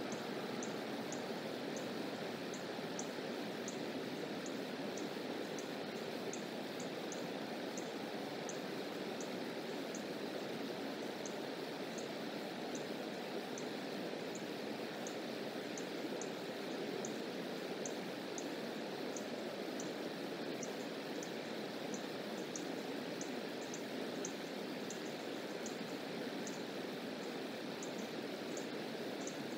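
Steady rush of running water from a creek, with faint high-pitched ticks repeating irregularly about twice a second.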